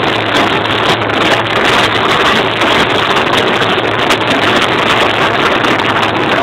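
Many motorcycle engines running together, a loud, dense, steady sound: a massed 'motorcycle orchestra' of riders sounding their engines at once.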